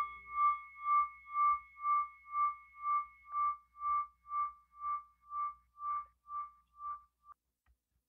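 A high bell-like tone ringing out and slowly fading, with a steady wobble in loudness about twice a second; it dies away about seven seconds in.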